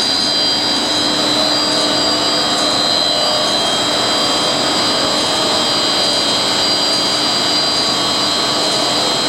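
HDPE blown film extrusion machine running: a steady, loud mechanical whir with several constant high-pitched whining tones over it.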